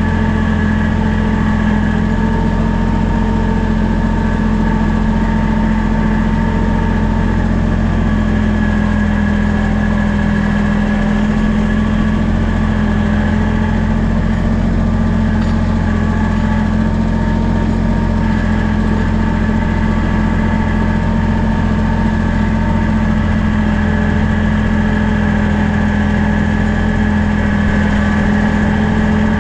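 Kubota BX23S compact tractor's three-cylinder diesel engine running at a steady speed as the tractor drives along.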